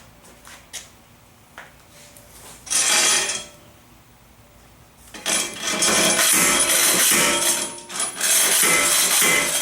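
Homemade slide hammer being worked on a rear wheel bearing hub that is seized in place. Faint metal clicks give way to one loud burst of metal clatter about three seconds in, then continuous loud metal clanking and scraping from about five seconds on.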